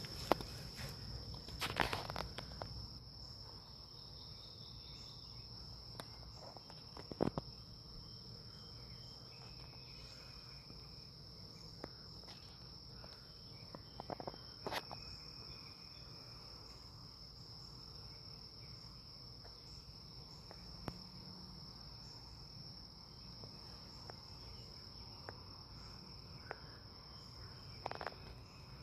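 Faint, steady high-pitched trill of crickets, with a few soft knocks scattered through it.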